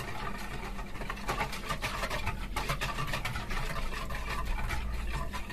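Wire whisk beating warm milk and water in a mixing bowl: a rapid, even run of swishing strokes with light clicks of the wires against the bowl.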